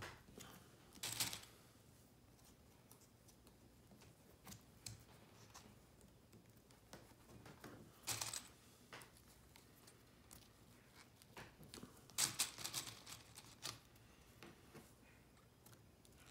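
Faint handling sounds of hands working cardboard strips and push pins on a book's board: scattered rustles, scrapes and small clicks, the loudest a cluster about twelve seconds in.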